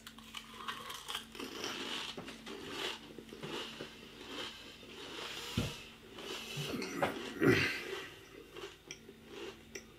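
A person crunching and chewing Pringles crisps close to the microphone: a run of irregular, crackly bites and chews.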